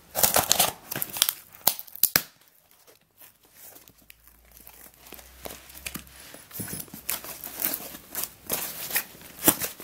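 Packing tape on a cardboard box being torn open with a screwdriver, a quick run of ripping and scraping strokes for about two seconds. After a quiet pause, the cardboard flaps are pulled open with scattered crinkling and rustling.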